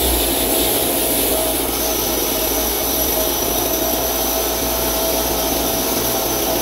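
Kärcher K3 Follow Me electric pressure washer running at full pressure, its motor and pump whining steadily under the hiss of the water jet striking a bicycle. A higher whine joins about two seconds in.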